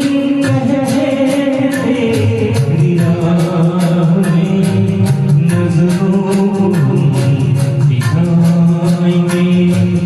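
Music: a voice singing a slow Hindi song over an accompaniment with a steady tick of about four beats a second.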